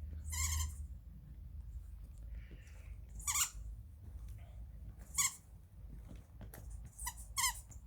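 A squeaky toy ball squeaking five times in short, high-pitched squeals, the last two in quick succession, with faint clicks and rustles between.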